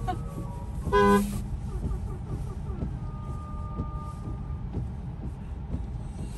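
A single short car horn honk about a second in, over steady road and tyre noise heard from inside the car's cabin on a wet road.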